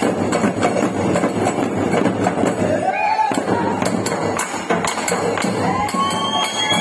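Dollu Kunitha drumming: large dollu barrel drums beaten in a fast, dense rhythm with a metallic jingle over the top. Two short rising-and-falling calls stand out briefly, around the middle and near the end.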